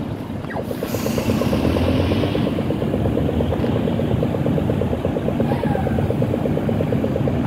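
A MAN NL323F (A22) diesel city bus running as it creeps slowly forward along the bus stop, a steady low engine rumble mixed with traffic. A fast, even ticking of about eight or nine ticks a second runs over it from about half a second in.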